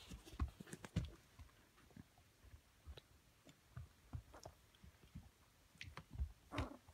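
Two-week-old Border Collie puppies tumbling and mouthing each other in early play: faint, scattered soft thumps, scuffles and clicks, with a slightly louder cluster near the end.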